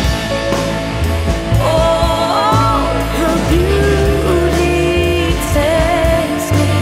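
Pop song with a woman singing a melody over bass and a steady drum beat.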